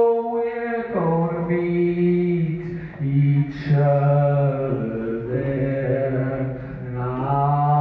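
A cappella male voice singing into a hand-held microphone: long, chant-like held notes that step to a new pitch every second or two, with no instruments.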